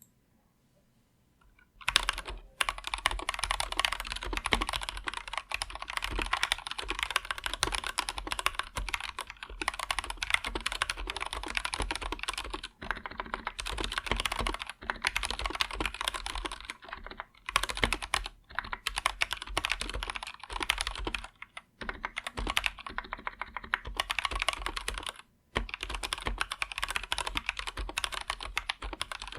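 Fast, continuous typing on an Anne Pro 2 mechanical keyboard with Gateron Red linear switches, a dense run of key clacks that starts about two seconds in and breaks off briefly a few times.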